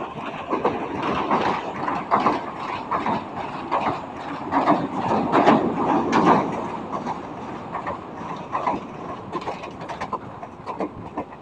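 Passenger train running, heard from an open carriage window: a steady rumble of wheels on the rails with many rail-joint clicks. It grows louder around the middle as the train crosses a steel girder bridge.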